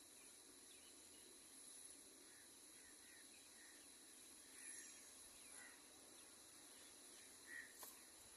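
Faint, scattered short bird chirps, about a dozen over several seconds, over a steady high-pitched hum or insect tone.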